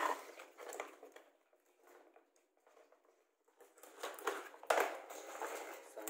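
Plastic toy dump truck being handled on a concrete floor: light knocks, clicks and scraping, with a sharp click near the end and a quiet stretch of about two seconds in the middle.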